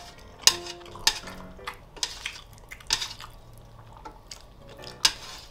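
Chopsticks scraping and clicking against a metal baking tray while gathering saucy black-bean noodles, a run of sharp clicks and scrapes, the loudest about half a second in and near the end.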